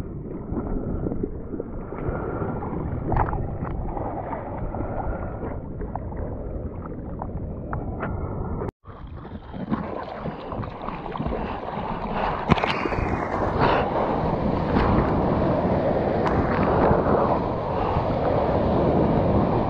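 Sea water sloshing and splashing around an action camera held at water level while surfing, with wind on the microphone. It is dull for the first half, drops out for a moment about nine seconds in, then turns brighter and louder with crackling spray and splashes.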